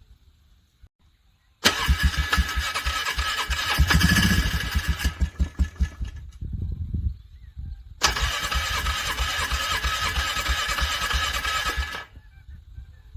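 Cold ATV engine being cranked over by its electric starter in two attempts of about four to five seconds each, turning over with a fast pulsing and not catching: it is struggling to crank over in the freezing cold.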